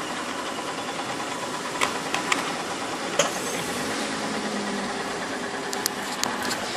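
A steady engine hum, like a vehicle idling, with a few light clicks scattered through it.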